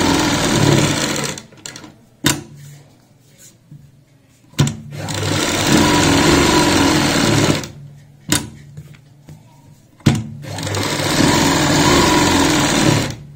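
Domestic straight-stitch sewing machine running in three bursts of about three seconds each, stitching a curved seam through the fabric, with a sharp click in the pauses between runs.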